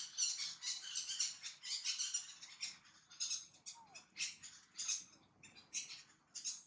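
Birds chirping and twittering in quick, high bursts, several a second, with one short falling note about four seconds in.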